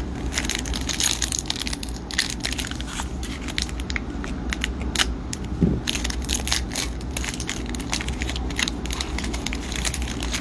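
Hockey card pack wrapper being crinkled and torn open, with cards handled: dense, irregular crackling.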